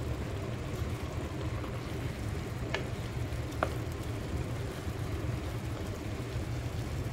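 Pork, onions and tomatoes sautéing in a pot, stirred with a wooden spoon, over a steady low hum. Two light clicks of the spoon on the pot come about three seconds in, less than a second apart.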